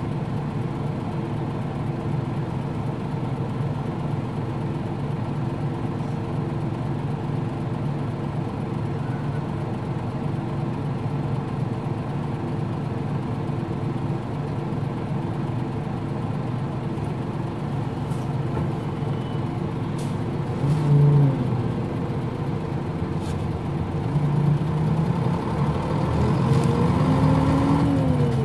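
Nissan Diesel KL-UA452MAN city bus's diesel engine heard on board, running steadily. Near the end its pitch rises as the bus accelerates, then drops again at a gear change.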